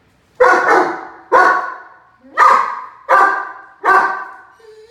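A five-month-old harlequin Great Dane puppy barking, a run of about six loud barks roughly a second apart.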